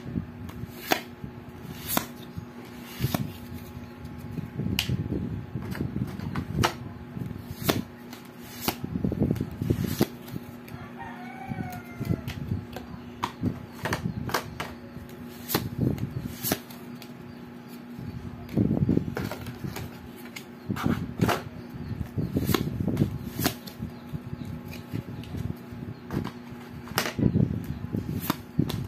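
Paper playing cards handled and flipped through one at a time: a crisp card snap about every second, with rustling as cards slide over each other, over a faint steady hum.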